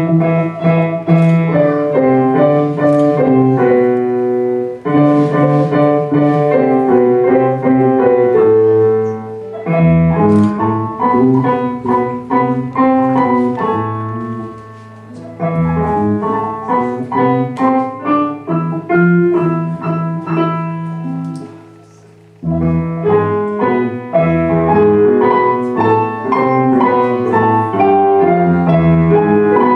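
A junior high school ensemble playing an instrumental piece in the key of C, in phrases of several seconds each with brief breaks between them.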